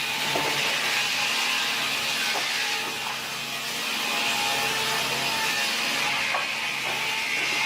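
A sawmill's powered saw cutting through wood, a steady rasping over machine tones.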